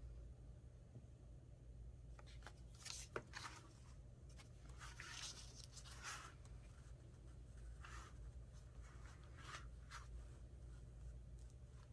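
Faint paper rustling and handling in short bursts, with one sharp tap about three seconds in.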